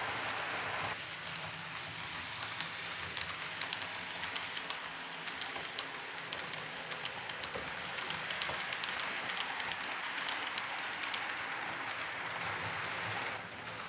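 H0-scale ROCO model intermodal freight train, pocket wagons carrying semi-trailers, rolling along the layout's track. It makes a steady rattling hiss dotted with many small clicks.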